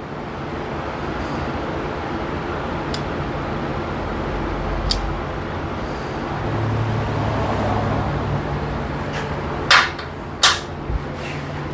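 Steady mechanical noise with a low hum, swelling a little in the middle, with a few light clicks and two louder knocks near the end.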